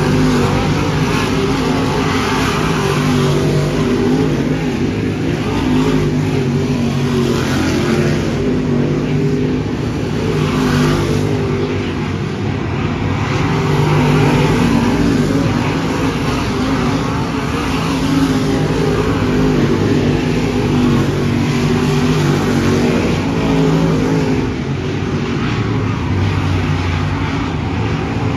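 Dirt track race cars running laps on the oval, their engines revving and rising and falling as they go by, with one car passing close and louder about halfway through.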